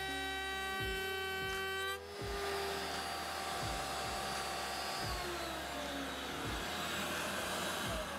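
DeWalt trim router mounted in a router table, running with a steady high whine over the hiss of a shop vac drawing dust through the fence. The whine cuts off about two seconds in, and falling tones follow over the last few seconds as the motors wind down.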